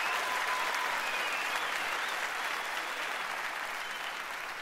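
Theatre audience applauding, the clapping slowly dying down toward the end.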